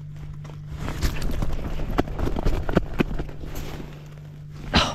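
Quick, irregular clicks and rustles of an ice-fishing rod, reel and gloved hands at work while a hooked crappie is brought up through the hole, with one sharper knock near the end, over a steady low hum.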